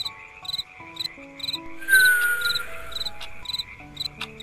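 Crickets chirping in an even rhythm, about two chirps a second, over soft, slow melodic music. About two seconds in, a short falling whistle is the loudest sound.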